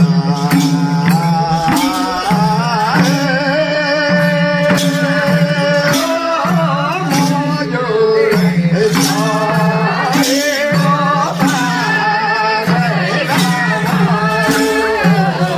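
A Nepali Bhailo folk song: a sung melody over a steady low drone, with sharp percussion strokes recurring at an even pace.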